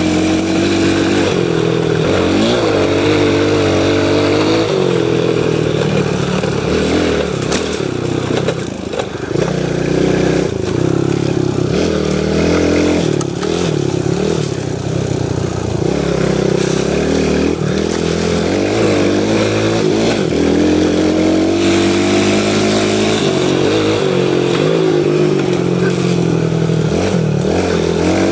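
Pit bike engine running hard while the bike is ridden, its pitch rising and falling over and over with the throttle. There are a few knocks and rattles from the bike around the middle.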